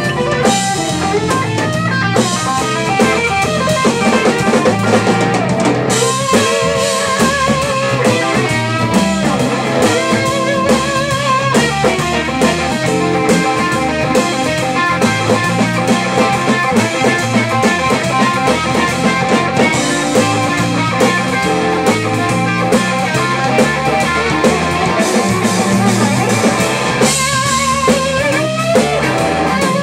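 Live blues band: a lead electric guitar solo of held notes with wide vibrato and string bends, over a drum kit.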